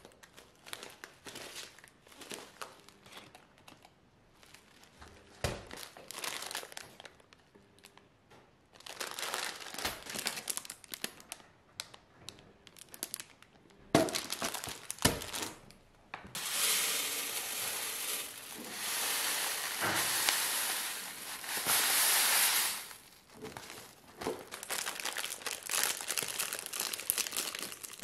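Paper and plastic bags of dried herbs and tea rustling and crinkling as they are handled, in irregular bursts with a few sharp clicks, and a longer, louder spell of crinkling a little past halfway.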